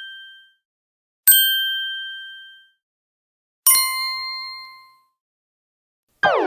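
Bell-like ding sound effects: a chime rings out about a second in and another, lower-pitched one about three and a half seconds in, each fading away over a second or so. Near the end a wavering, wobbling synthesizer tone starts.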